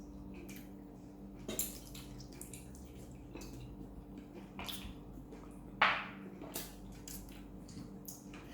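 Wet eating noises from chicken feet being eaten by hand: scattered lip smacks, sucking and chewing clicks, with one sharper, louder smack about six seconds in. A steady low hum runs underneath.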